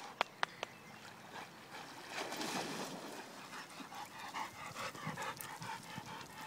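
A dog coming out of the water with a brief wet rush of splashing, then panting quickly and evenly as it walks up close.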